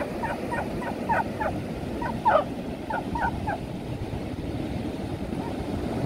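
Beagle yapping in play: a quick run of about ten short, high yelps over the first three and a half seconds. A steady low rush of surf lies under the yelps and continues after they stop.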